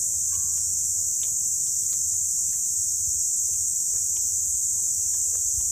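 A loud, steady, high-pitched drone of insects calling. A few faint clicks sound here and there.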